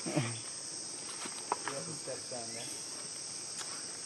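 Steady, high-pitched chorus of rainforest insects, an even shrill hiss, with faint voices murmuring briefly near the start and about two seconds in.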